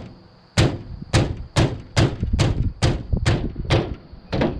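About ten hard, ringing thumps on the sheet-metal hood of a 1998 GMC K1500 pickup, evenly paced at roughly two a second: the hood is being pounded on while it will not come up.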